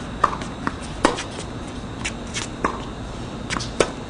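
Irregular sharp taps on a hard tennis court, from tennis balls bouncing and players' footsteps between points: about six in four seconds, the loudest about a second in.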